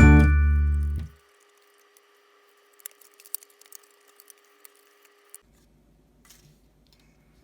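Background music ends on a held chord about a second in. After that come only faint, scattered small clicks and taps, like light handling of small objects, over a faint steady hum.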